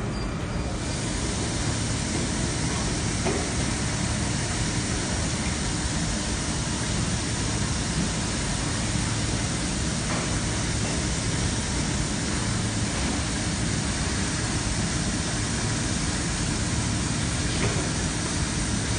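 Circuit-board cleaning machine running: a steady hiss over a low machine hum, the hiss growing fuller about a second in.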